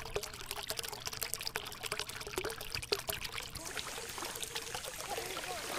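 Shallow seawater lapping at the shoreline, a dense patter of small water ticks and splashes that smooths into a steadier wash about halfway through.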